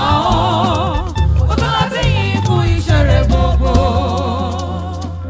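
Church choir singing a Yoruba gospel praise hymn, the voices wavering in vibrato, then holding a long final chord that fades near the end.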